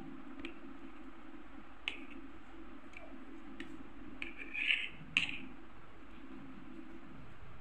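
Knife blade clicking against a plate as a block of paneer is cut into cubes: about six separate sharp clicks, with a short scrape just before the loudest click about five seconds in, over a steady low hum.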